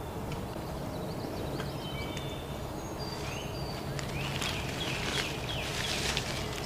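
Songbirds singing and calling in woodland: scattered high whistled notes, then a louder run of quick song from about four to six seconds in, over a steady low background hum.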